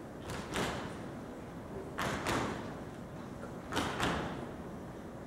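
Rhythmic percussion beat: pairs of thumps about a third of a second apart, repeating about every second and three-quarters, with a reverberant tail.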